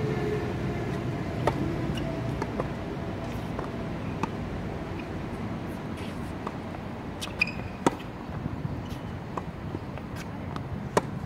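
Tennis ball struck by rackets and bouncing on a hard court during a singles rally: a handful of sharp pops a second or more apart, the loudest about eight seconds in, over steady background noise.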